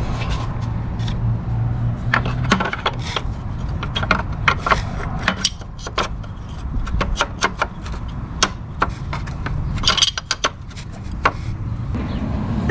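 Irregular clicks and clinks of hand tools and small metal parts being handled while working on a car engine, over a steady low hum.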